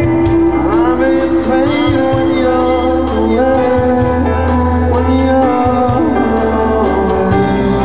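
Live pop-rock band playing: a held bass line, drums with a steady cymbal beat, electric guitar and a male lead vocal.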